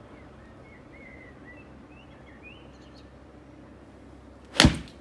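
A golf iron strikes a ball off a practice mat on a full 9-iron swing: one sharp crack about four and a half seconds in. Before it, faint birds chirping.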